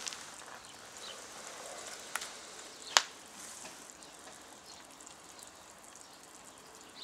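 Wood fire crackling under a steaming stew pot, a light continuous sizzle with two sharp snaps about two and three seconds in, the second much the loudest.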